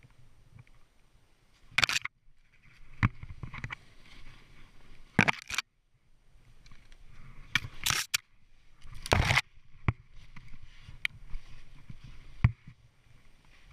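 Snowboard sliding and turning through deep snow: irregular loud swishes and scrapes of the board on the snow every second or two, with a few sharp knocks, over a faint low rumble of wind on the camera.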